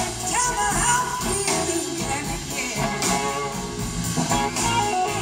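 Live blues-rock band playing: electric guitars over drums, heard from the crowd in a concert hall.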